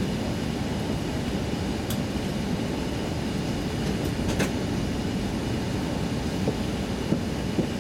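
Steady low rumble inside the cabin of an Airbus A380 taxiing: engine noise at taxi power and the landing gear rolling over the taxiway, with a couple of faint clicks.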